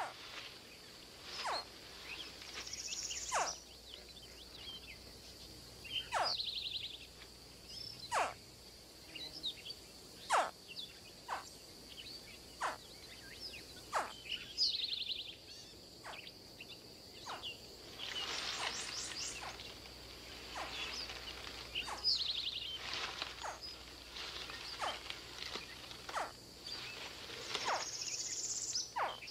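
Swamp wildlife ambience: a steady high-pitched insect drone, with short sharp chirps every second or two and a few buzzy bird trills, the longest about two-thirds of the way through.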